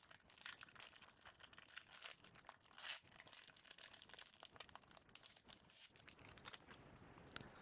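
Faint crinkling and crackling of a trading-card pack wrapper being torn open and handled, with many small clicks; it stops near the end.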